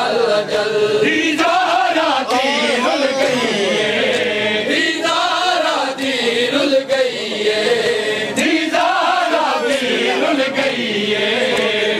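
Group of men chanting a noha, a mourning lament, in drawn-out unison, with the slaps of matam chest-beating beneath the voices.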